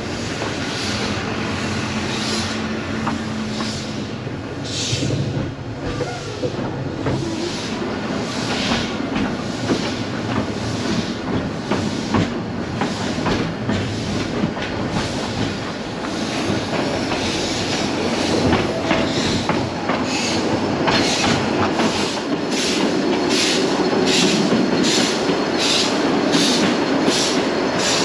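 Narrow-gauge steam locomotive pulling away and gathering speed, its exhaust beats quickening from about one a second to nearly two a second, over the rumble of the carriages running on the track.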